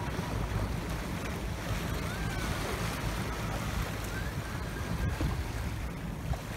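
Steady wind rumbling on the microphone over a low wash of distant boat engines and river water.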